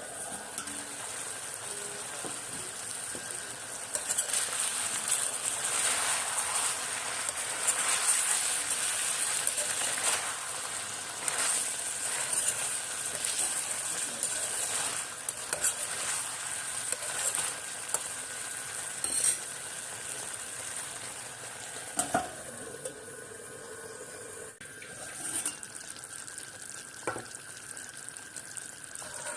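Pork frying in a pan, sizzling steadily while a spatula stirs it, with frequent clicks and scrapes of the spatula against the pan.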